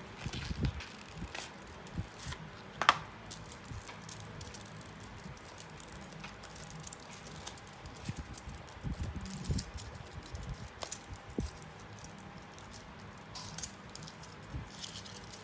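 Paper and foil wrapper of a chocolate bar rustling and crinkling as it is unwrapped by hand, with scattered small clicks and a sharper tap about three seconds in.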